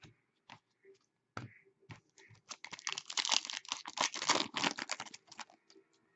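Hockey trading cards being handled and flipped through by hand: a few scattered clicks, then a dense run of quick dry clicks and rustles for about three seconds in the middle.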